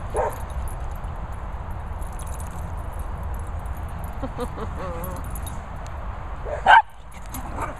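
A dog barking: a short yelp just after the start, a few wavering whines in the middle, then one loud, sharp bark near the end and a weaker one after it, over a steady low rumble.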